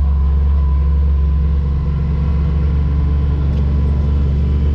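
A vehicle's engine running steadily, with a deep, even drone and no change in pitch.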